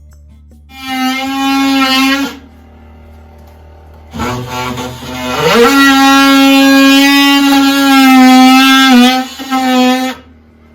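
Background music: one held note for about a second and a half, then after a short pause a rising slide into a long held note of about five seconds.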